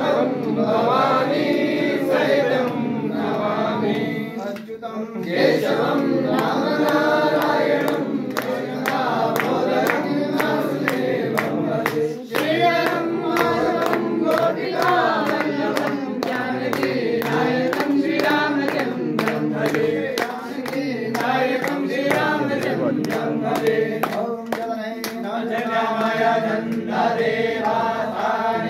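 A group of voices singing a Shiva aarti together, accompanied throughout by sharp, rhythmic percussive strikes.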